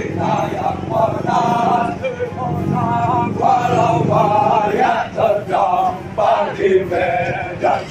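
A formation of Indonesian army soldiers singing and chanting a running cadence in unison while they jog, many male voices together in short repeated phrases.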